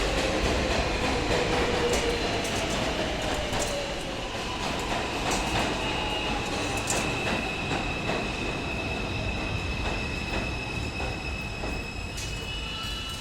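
New York City Subway train running on the rails and slowing down: its motor whine falls in pitch and its rumble eases, with a steady high-pitched wheel squeal and scattered clicks from the wheels on the track.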